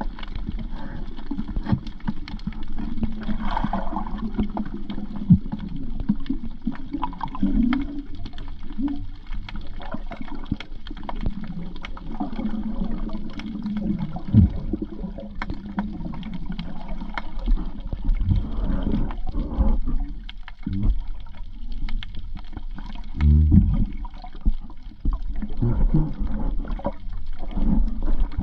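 Muffled underwater sound of water moving around a submerged camera, with low gurgling and scattered small clicks.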